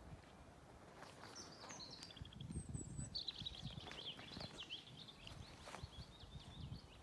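A small songbird singing: a few short chirps about a second in, then a long, rapid twittering phrase, over a faint low rumble.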